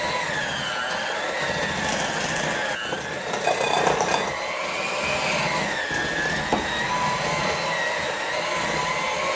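Electric hand mixer running, beating butter and sugar for cookie dough. Its motor whine wavers up and down in pitch as the beaters meet more and less resistance.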